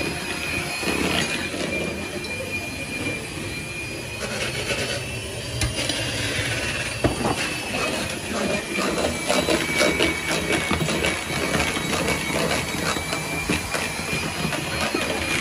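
Electric hand mixer running steadily with a high whine, its beaters whisking batter in a plastic bowl, with many scattered clicks and knocks, thickest in the middle.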